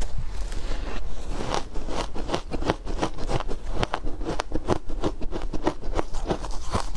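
Chewing powdery ice dusted with matcha powder: a quick run of crisp crunches, several a second, picking up about a second in.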